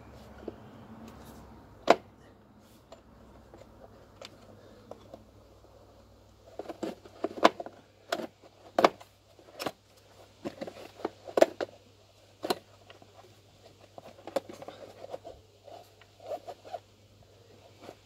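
Hands working on parts in a car's engine bay: irregular sharp clicks and knocks of plastic and metal being handled, thickest in the middle.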